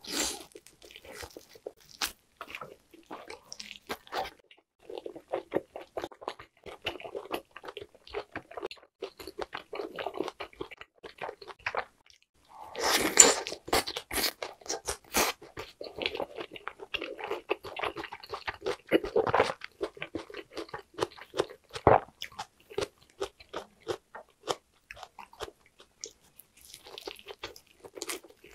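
Chewing of grilled lamb shoulder-rack meat bitten off the bone: a dense run of small mouth clicks, with a louder bite about halfway through.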